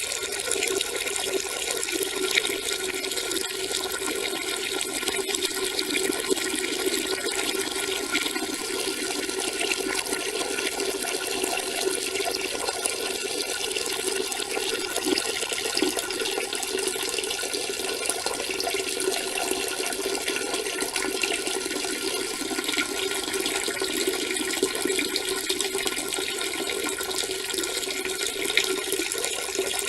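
A person urinating: a steady, unbroken stream splashing into water.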